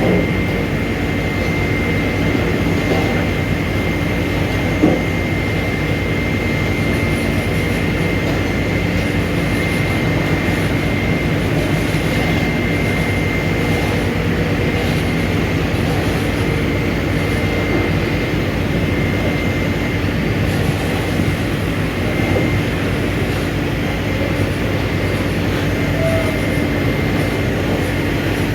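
Heavy diesel engine running steadily: a low, even drone with a constant high whine over it, and a single short knock about five seconds in.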